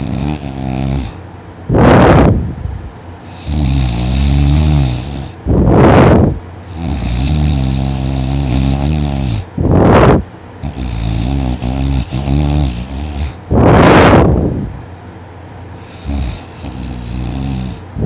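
A woman snoring very loudly in deep sleep, with long, rattling, growling snores. These alternate with short, louder rushing breaths, one breath cycle about every four seconds.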